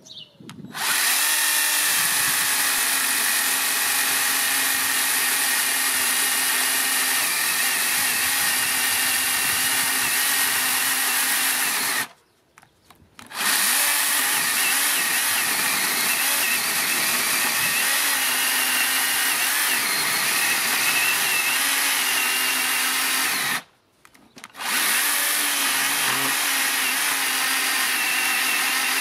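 Parkside PKSA 20-Li B2 20 V cordless electric chainsaw running steadily under load, its chain cutting through a thick log that is at the limit of its 23 cm cutting length. It starts about a second in, and the sound drops out twice for about a second.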